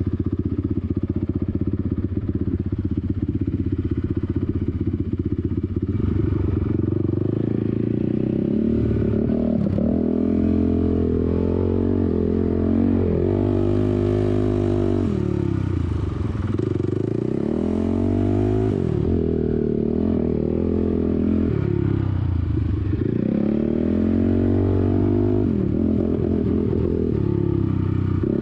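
Off-road vehicle engine running hard while riding over sand dunes, steady at first and then rising and falling in pitch again and again as the throttle is opened and closed over the dunes.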